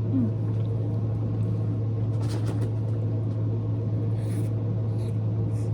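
Steady low hum, loud and unchanging, with a few faint short clicks over it.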